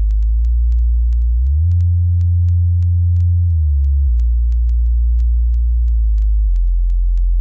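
Subwoofer bass test tone: a loud, steady, very deep synthetic hum. It slides up in pitch about a second and a half in, holds, then slides back down around four seconds in.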